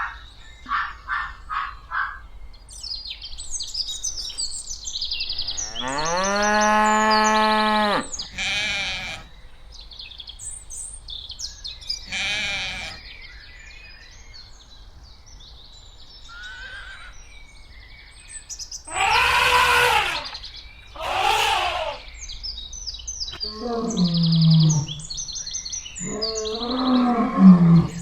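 A string of different animal calls one after another. Birds chirp and tweet throughout. About six seconds in comes one long, steady, drawn-out call, and past the middle there are wavering livestock bleats.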